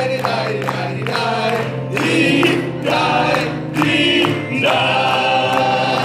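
A group of performers singing the chorus of an improvised Irish drinking song together over instrumental accompaniment, then holding a long final note near the end.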